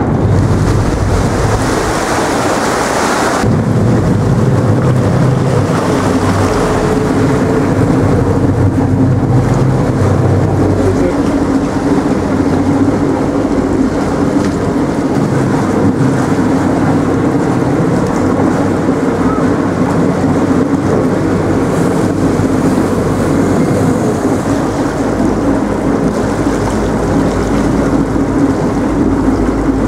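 Boat engine droning steadily while cruising along a canal, with wind rushing and buffeting on the microphone. A harsher hiss covers the first few seconds and then drops away suddenly.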